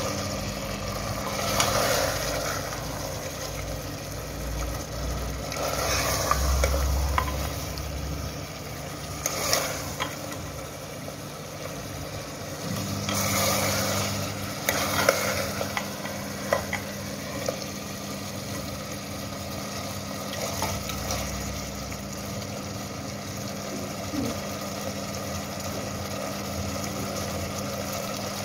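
A metal spoon stirring thick goat meat pickle in an aluminium pressure-cooker pot, with louder scraping swells every few seconds over a steady low mechanical hum.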